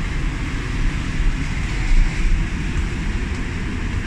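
Steady low mechanical rumble under an even airy hiss, the drone of machinery heard in an airport jet bridge.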